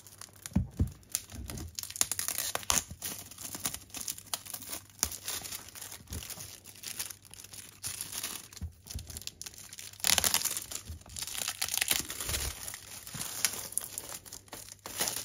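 Cardboard mailing box being torn open by hand along its perforated tear strip, with irregular tearing, rustling and crinkling of the packaging; the rustling is louder for a couple of seconds about ten seconds in.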